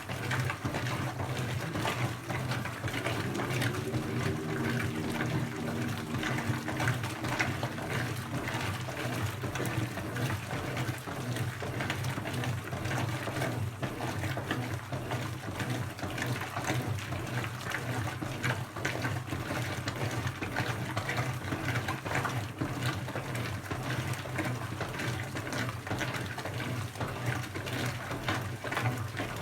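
Brastemp BWK17 17 kg washing machine partway through its quick cycle: water rushes and splashes over a steady low hum.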